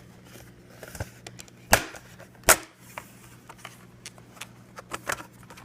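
Plastic clicks and taps as a laptop keyboard is pried free and handled, with two sharper clicks a little under a second apart near the middle.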